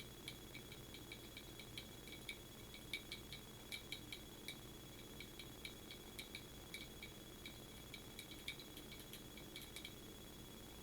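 Soft, irregular clicking of a computer keyboard and mouse, a few clicks a second, over a faint steady high-pitched whine.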